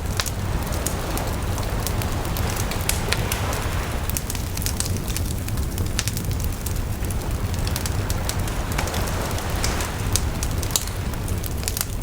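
Wood fire crackling and popping, with frequent sharp snaps, over the steady wash of sea waves on the shore that swells and fades about twice.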